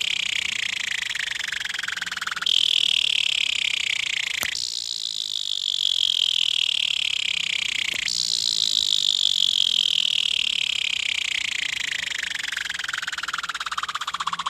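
Fidget spinner whirring with a fine rattling buzz whose pitch falls steadily as it slows down. It is flicked back up to speed three times, the pitch jumping up suddenly each time, about two and a half, four and a half and eight seconds in. The last spin winds down longest.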